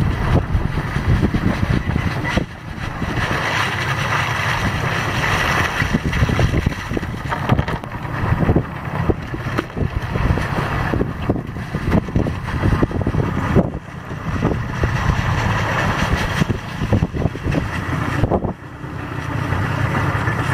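A small outboard-powered boat at sea, heard as a steady low rumble with wind buffeting the microphone. Scallop shells clatter in quick, uneven clicks as they are handled and poured into plastic crates.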